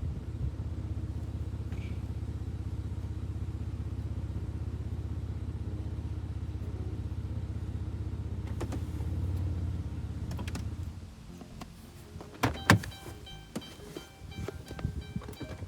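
Car engine running with a steady low rumble that stops about eleven seconds in, followed by several clicks and one sharp knock.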